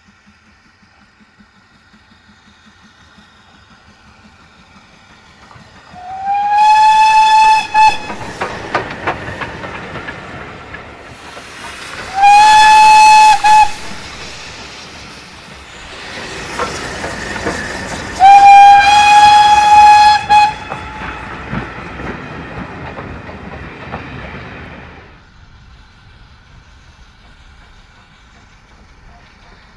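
Steam whistle of BR Standard Class 4 tank locomotive 80078, blown three times as it passes a whistle board: a blast of about two seconds, a shorter one, then a longer one, each one steady single note. Under and between the blasts, the passing train clatters, its carriage wheels clicking over the rail joints, and the noise fades away near the end.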